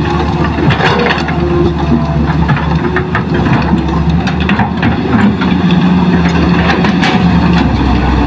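Hitachi hydraulic excavator's diesel engine running steadily under load, with scattered knocks and clatter as soil is dropped into a dump truck bed. The engine note grows stronger about halfway through as the arm swings back to dig.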